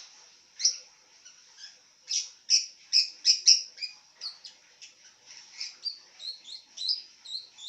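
Lovebird chirping in a string of short, sharp, high-pitched calls, loudest in a quick run about two seconds in, then softer, faster twittering.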